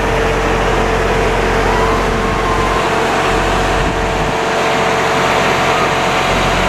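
An engine running steadily: a loud, even hum with a steady mid-pitched tone over it.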